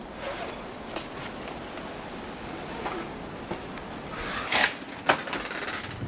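A house's front door being unlocked and opened: scattered small clicks and knocks, then a louder latch sound about four and a half seconds in and a sharp click just after five seconds.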